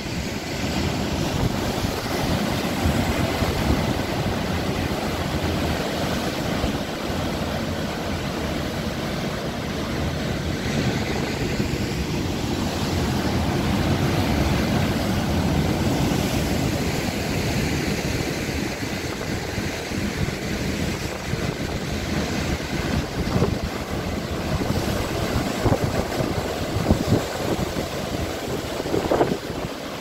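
Rough sea surging and breaking into foam against volcanic rock at the foot of a cliff: a steady, loud rushing noise, with wind buffeting the microphone in short low gusts.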